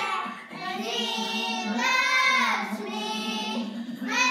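Young children singing a praise song together, in unison, holding long notes.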